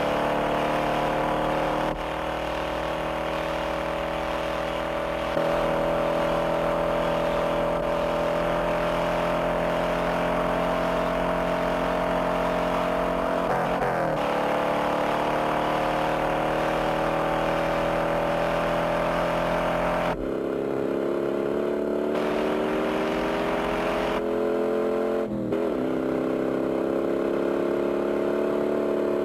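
Big-block V8 engines of a 1968 Ford Mustang GT fastback and a Dodge Charger running hard at high revs. The engine note climbs slowly, with a quick dip and recovery in pitch twice, about halfway through and near the end.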